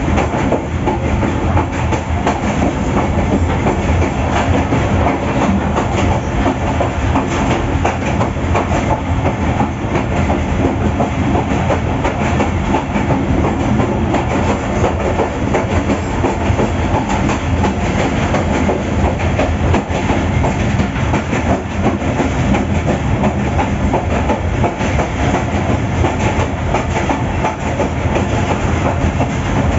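Coal train hauled by a GEU40 diesel-electric locomotive running along the line, heard from on board: a steady rumble with continuous clattering of the wheels over the rails.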